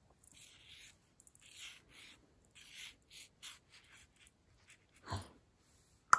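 Cat playing with a stick toy on a rug: a run of short scratchy rustles as it paws and claws at the toy, a soft thump about five seconds in, and a sharp click near the end.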